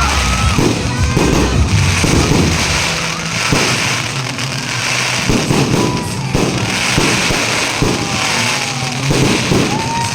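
Aerial fireworks going off in a rapid series of bangs and crackles, with music playing underneath.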